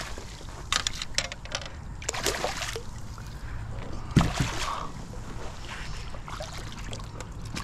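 Water splashing and dripping as a redfish is scooped in a landing net beside a kayak and brought aboard, with scattered light knocks and one heavier thump a little past the middle.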